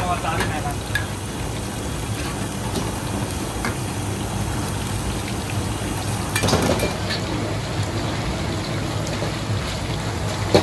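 Steady rushing noise of a hawker stall's kitchen, with a constant low hum underneath and a brief voice about two-thirds of the way in.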